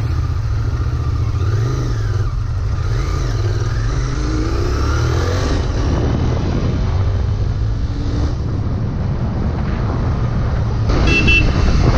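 Royal Enfield GT 650's parallel-twin engine running as the motorcycle is ridden, with a steady low rumble. Near the end the bike's horn sounds briefly.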